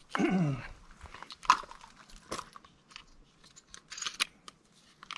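Scattered light clicks and rustling from .410 shotgun shells being handled and loaded by hand.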